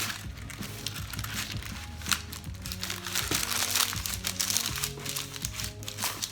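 Paper crinkling and rustling as it is handled, over background music with steady low held notes.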